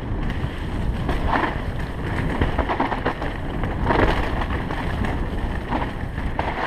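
Canyon Strive mountain bike rattling down a dirt singletrack, its tyres rolling over the ground and wind rumbling on the action camera's microphone, with a few brief louder surges along the way.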